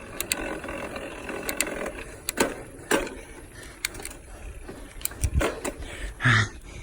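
Bicycle drivetrain clicking: scattered, uneven mechanical clicks and ticks over a low rumble.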